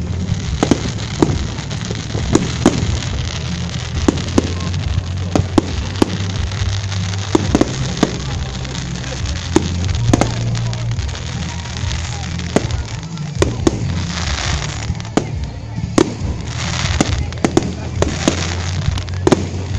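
Fireworks display: aerial shells bursting overhead in a fast, irregular string of sharp bangs, one to three a second, with a few longer stretches of hiss near the end.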